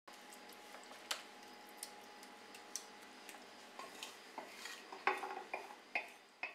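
A spoon spreading and levelling a soft minced-meat filling in a baking pan: faint scrapes and light clicks of the spoon on the pan, with a cluster of louder clicks and clinks near the end.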